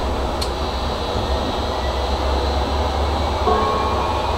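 Karlsruhe tram running along the track, heard from inside at the front: a steady low rumble of wheels on rail. A single sharp click comes about half a second in, and a faint whine joins about three and a half seconds in.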